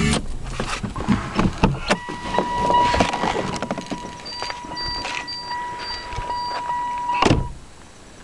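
Clicks and knocks of handling in a car, a steady electronic tone with five short high beeps over it, and a loud thump about seven seconds in, after which it goes quiet.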